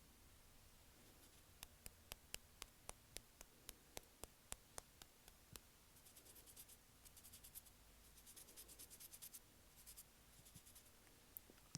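Quiet, close-miked handling of Shine Muscat gummies and their plastic packet: a run of about fifteen sharp taps or clicks, then several short bursts of fine crinkling and crackling.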